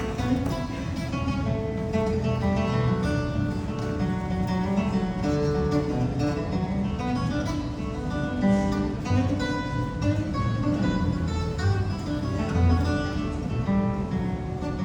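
Acoustic guitar playing an instrumental passage, plucked and strummed notes with a steady beat.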